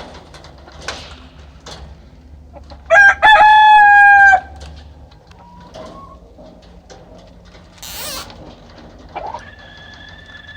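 Rooster crowing once, loud, about three seconds in: a short note and then a long held one. Near the end another long call begins, slowly falling in pitch.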